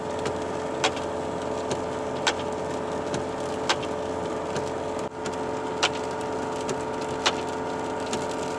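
A car driving on a wet road, heard from inside the cabin: a steady engine and tyre drone with a constant hum. A sharp tick comes about every one and a half seconds, with fainter ticks in between.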